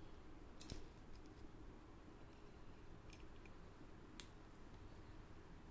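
Faint scattered clicks of a small Allen key working the screws of a clip-holster plate on the back of a Glock slide, with a sharper click a little after four seconds in.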